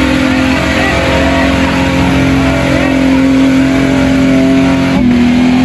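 A motor running at a steady pitch, dropping slightly in pitch about five seconds in, with faint voices behind it.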